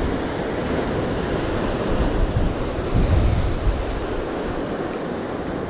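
Sea surf breaking and washing over the rocks below, with gusts of wind buffeting the microphone.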